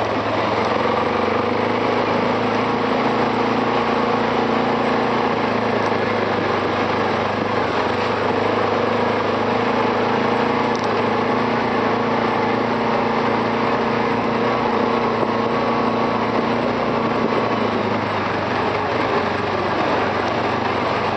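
Arctic Cat 700 TRV ATV's single-cylinder four-stroke engine running at steady speed on a dirt trail, over a constant rushing noise. The engine eases off near the end.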